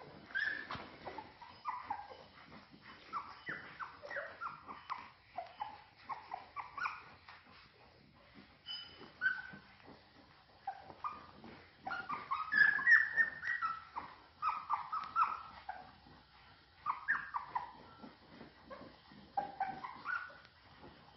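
A litter of newborn puppies squeaking and whimpering as they nurse, with many short high squeaks and a louder run of squeals about twelve seconds in.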